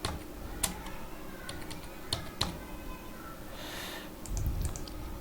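Computer keyboard keys struck one at a time at a slow, uneven pace, typing the home-row F and J keys in a typing drill. A short soft rush of noise comes about four seconds in.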